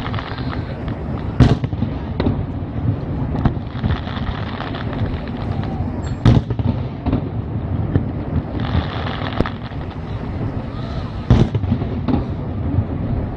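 Aerial firework shells bursting with sharp bangs, the loudest about a second and a half in, about six seconds in and about eleven seconds in, with smaller reports between them over a steady low rumble.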